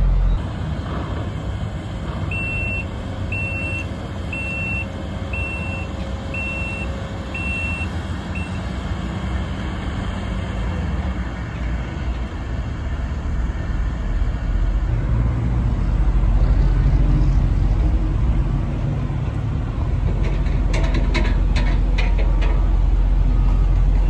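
Heavy diesel construction machinery running, with a backup alarm beeping six times, about once a second, a few seconds in. The engine rumble grows louder in the second half, and a few sharp clanks sound near the end.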